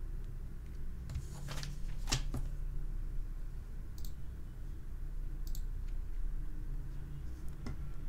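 Quiet room with a steady low hum, broken by a few soft clicks and a short rustle about one and a half to two and a half seconds in, and faint ticks later on.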